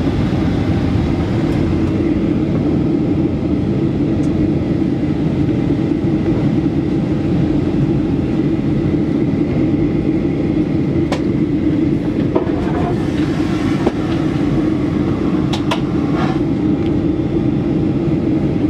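Steady cabin noise of a Ryanair Boeing 737-800 in flight: an even roar of jet engines and airflow with a strong low hum. A few faint clicks come in the second half.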